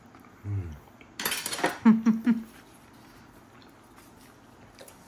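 Laughter-like voice sounds: a low grunt, then a loud breathy outburst and three short pitched 'ha' pulses. Metal cutlery clinks lightly as it is set down.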